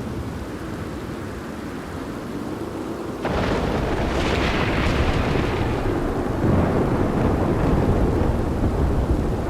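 Thunderstorm with rain: a low thunder rumble over steady rain, then about three seconds in a sudden loud thunderclap that crackles and rolls on as a heavy rumble.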